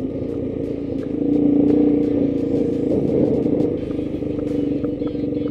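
Yamaha Warrior ATV's single-cylinder engine running steadily at low speed, its hum swelling a little about a second in. Light clicks and rattles run over it.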